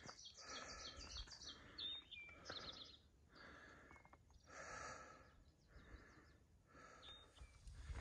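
Faint birdsong: quick series of high chirps and short trills, clustered in the first few seconds and again near the end, with soft rushing sounds swelling in between.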